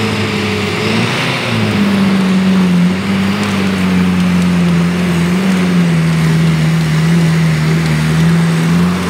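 Off-road 4x4's engine running under load at a nearly steady pitch as it crawls along a rutted muddy track, the note dipping slightly now and then.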